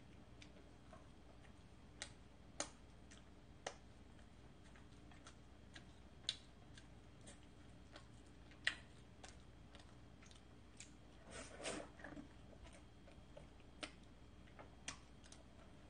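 Quiet eating with faint, irregular clicks of a metal fork against a glass pasta bowl and soft chewing of cream pasta and bread. There is a short flurry of clicking and scraping about two-thirds of the way in.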